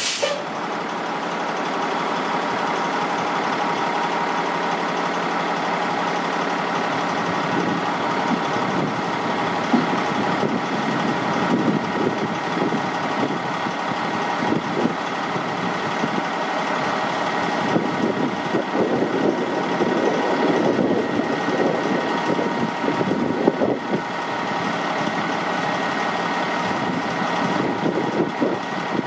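Caterpillar diesel engine of a 1997 Ford LTL9000 tri-axle dump truck idling steadily while the raised dump body is lowered. A brief hiss comes right at the start.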